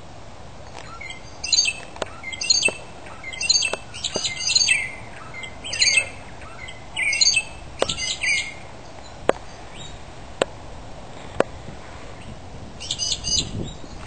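Two birds fighting, giving short, high, bursts of calls about once a second for several seconds, then a pause and another burst near the end. Sharp single ticks are scattered between the calls.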